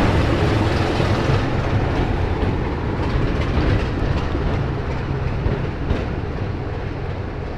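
BR Class 25 diesel locomotive's Sulzer six-cylinder engine running as the locomotive moves away along the track, with wheels clattering on the rails; the sound fades steadily as it recedes.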